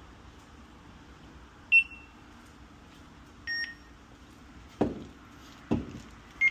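Electronic beeps from a store checkout terminal during a card payment: a short high beep, a two-tone beep about two seconds later, then two dull thumps and a quick pair of beeps at the end.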